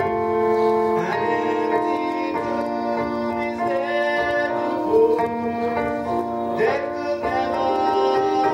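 A man singing a slow gospel solo into a microphone over instrumental accompaniment, holding long notes that change about every second.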